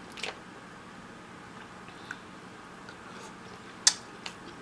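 Close-miked eating of a seafood boil: a few short, sharp wet clicks and smacks of chewing, the loudest near the end.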